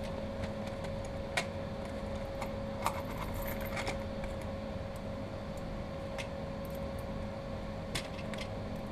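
Scattered light metallic clicks and clinks of .22 rimfire cartridges being handled and loaded into a revolver's cylinder, over a faint steady hum.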